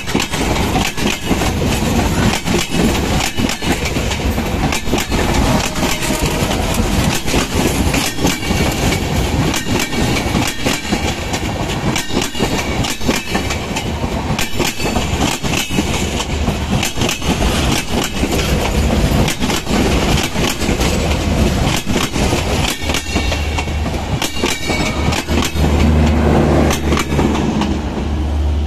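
Padma Express intercity passenger coaches passing close by, their steel wheels clattering rapidly and unevenly over the rail joints. A low rumble swells near the end as the last car goes by.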